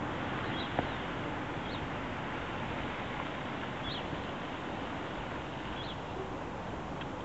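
Steady outdoor background noise, with a few short, faint high bird calls every second or two and a single click just under a second in.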